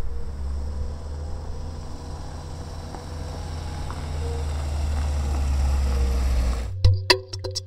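A steady low rumble that slowly grows louder, cut off suddenly near the end by percussive music with sharp wood-block-like clicks.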